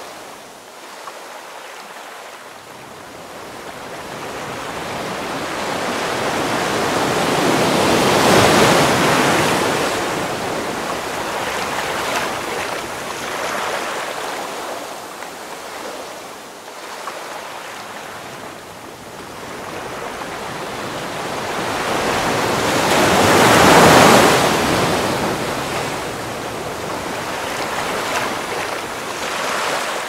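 A wide whooshing noise, without tone or rhythm, that slowly swells and fades twice, loudest about a third of the way in and again near the last quarter, like surf washing in or gusts of wind.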